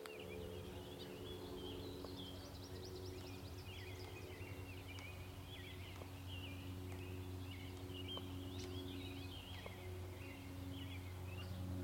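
Birds chirping and singing continuously over a steady low hum.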